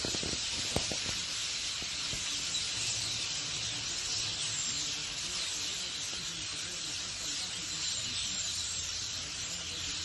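A large flock of starlings in roost trees giving a continuous, dense high chatter of countless overlapping calls. There is one sharp click just under a second in.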